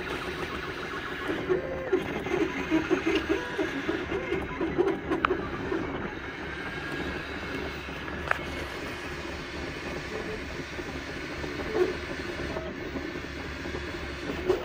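MakerBot 3D printer running a print, its stepper motors whining in quick, shifting tones as the print head moves, busiest in the first few seconds. A sharp click about eight seconds in.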